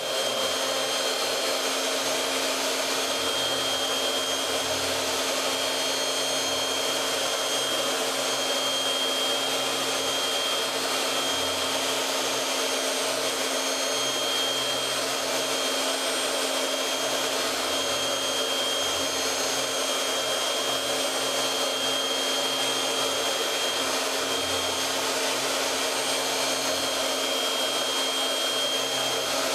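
CNC router spindle running steadily as its end mill cuts a contour through foam tooling board: a constant high whine over a steady hiss.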